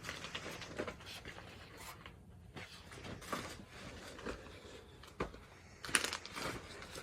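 Rustling and soft scraping of clothing being handled and unfolded, with a few sharper clicks and rustles, loudest about six seconds in.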